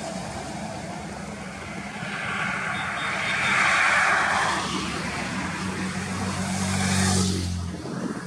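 Heavy highway traffic passing: tyre and engine noise swells to a peak a few seconds in. Then a low engine hum builds and drops away abruptly near the end.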